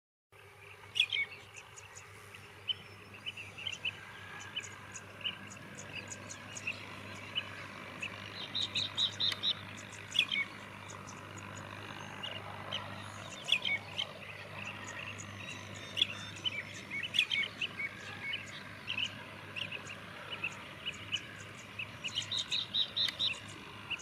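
Several common mynas calling: a busy, irregular mix of short whistles, sharp clicks and chattering notes, with quick runs of rapidly repeated notes about eight seconds in and again near the end. A faint low steady hum lies underneath.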